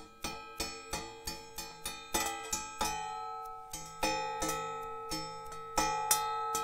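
Background music of plucked string notes at an even, lilting pace, about three notes a second, with some notes ringing on.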